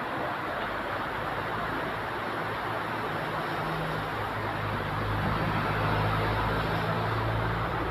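Truck engines droning on a steep hill road, the low drone growing louder about five seconds in, over a steady hiss of rain.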